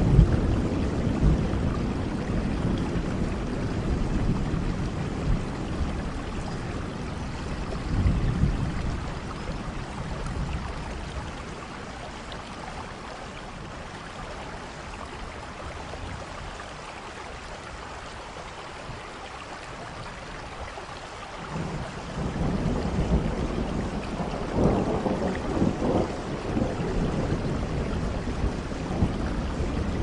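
Steady rain with thunder rumbling low. A rumble dies away in the first couple of seconds and another comes about eight seconds in. The storm then eases for a stretch before the thunder builds again over the last third.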